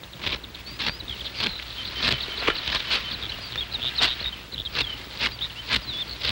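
Irregular crisp strokes of dry rice stalks being cut and rustled by hand at harvest, about one or two a second, with short high chirps over a steady outdoor haze.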